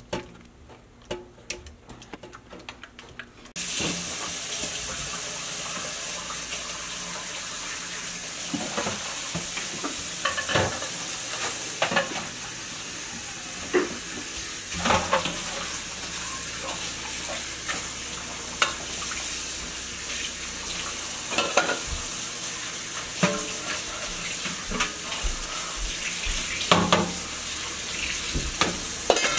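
Kitchen tap turned on about three and a half seconds in, running steadily into a stainless-steel sink. Scattered clinks and knocks of dishes and a lid being handled under it. Before the tap starts there are only soft clicks of hands working in a plastic sink basket.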